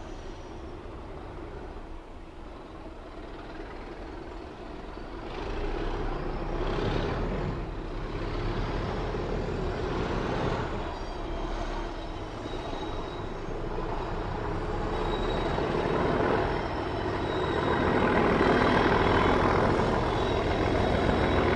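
British Rail Class 37 diesel locomotive's English Electric V12 engine running under power and growing steadily louder as it nears. A thin high turbocharger whistle comes in around the middle.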